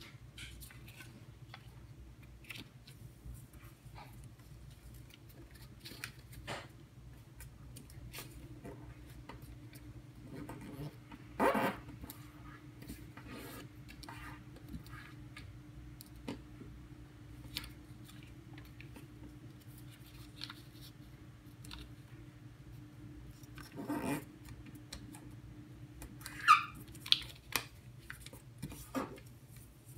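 Origami paper being folded and creased by hand on a tabletop: scattered soft crinkles and taps, with louder paper rustles a little over a third of the way in and again near the end, over a faint steady hum.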